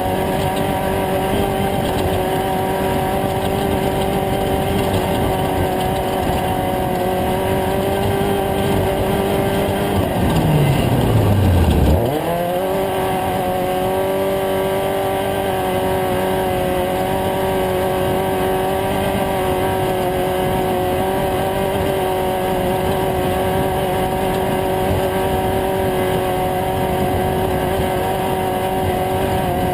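Off-road race truck engine running at steady high revs, its pitch dropping sharply about ten seconds in and climbing back up over the next couple of seconds.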